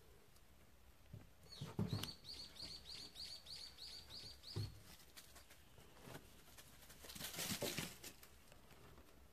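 A bird calling a quick run of about ten short, high, identical notes, about three a second, for some three seconds. A few soft thumps come during the calls, and a burst of rustling about two seconds before the end.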